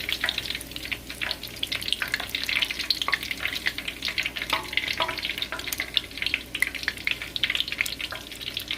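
Shrimp egg foo young patties frying in hot oil in a pan: a steady sizzle with many small crackling pops.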